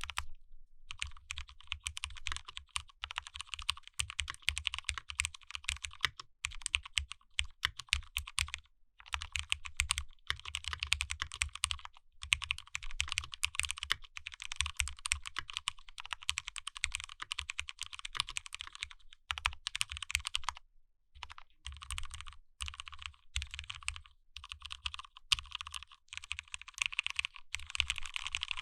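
Cherry MX Board 3.0S mechanical keyboard being typed on steadily; its Cherry MX Black linear switches are fully lubricated. The keystrokes come in fast runs broken by a few short pauses.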